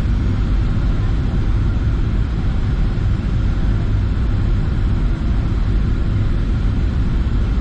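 Steady low rumble of a Boeing 737-800's CFM56 engines and rushing air, heard inside the cabin on approach.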